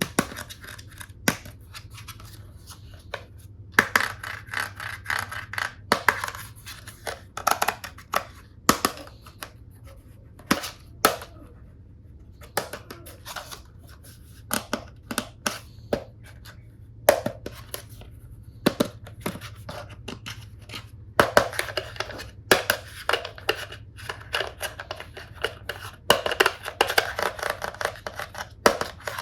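Hard plastic toy tool pieces and packaging being handled: irregular sharp clicks and knocks, with longer stretches of crinkling plastic wrap.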